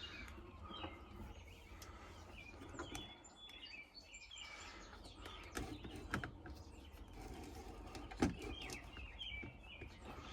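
Faint birds chirping over a low steady hum, with a few sharp knocks, the loudest about eight seconds in.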